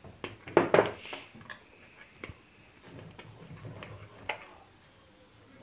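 Metal spoon clinking and scraping against a glass mixing bowl as flour is spooned into runny batter and stirred. A few loud knocks come close together a little under a second in, then scattered light taps.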